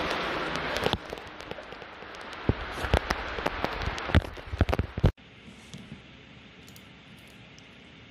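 Water pouring from a round pipe outfall and splashing into a culvert's channel, loudest in the first second, with a run of sharp splashes and clicks from about two and a half to five seconds in. It cuts off abruptly about five seconds in, leaving only a faint steady hiss.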